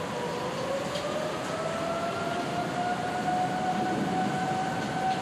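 A siren wailing over a steady background hiss, its pitch rising slowly for the first few seconds and then holding.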